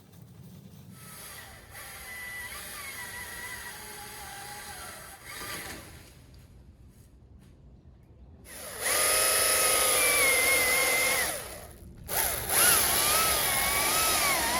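Husqvarna T540i XP battery chainsaw's electric motor whining in bursts, stopping and starting again. In the last few seconds its pitch wavers up and down as the chain is loaded in the wood.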